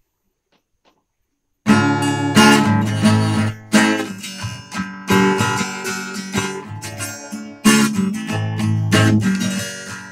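Steel-string acoustic guitar strumming chords as a song's intro, starting suddenly almost two seconds in after near silence.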